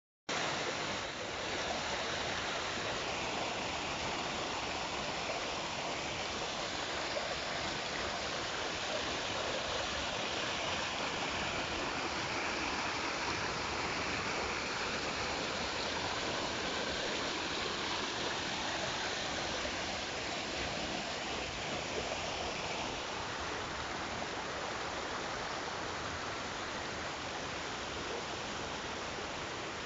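Natural waterfall: water falling and splashing in a steady, continuous rush.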